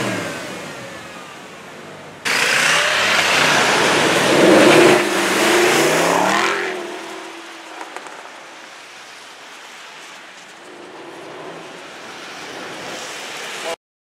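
Mercedes-Benz SLS AMG's V8 revving hard and accelerating away, its pitch rising and falling for a few seconds, then fading into quieter street traffic. The sound cuts off just before the end.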